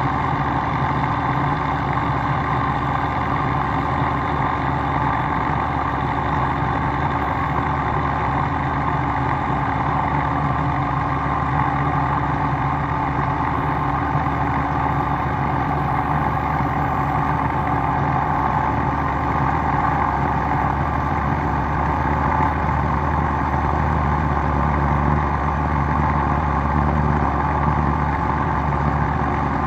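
Steady, even hum of a running machine with a motor, with no strikes or breaks.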